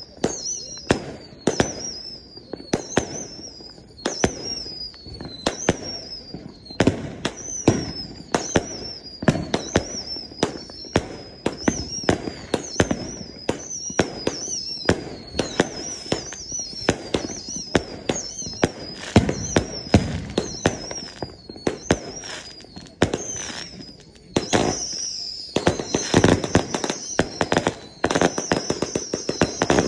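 A 100-shot firework cake firing in steady succession, about one and a half shots a second. Each shot is a sharp bang followed by a falling whistle. From about 24 seconds in, the shots come faster and denser with crackling, like a finale volley.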